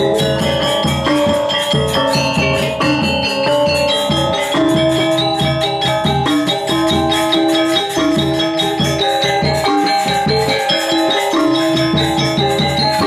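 Balinese gamelan music: bronze metallophones struck in fast, dense patterns over ringing held tones, with cymbal-like rattling above.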